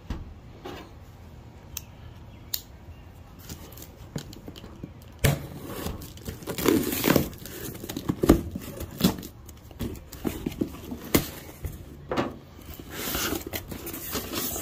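Cardboard box being opened: a knife slitting the packing tape and the tape tearing loose, with the cardboard flaps scraping. The first few seconds are quiet but for a few light clicks; the cutting and tearing start about five seconds in, and crumpled kraft packing paper crinkles near the end.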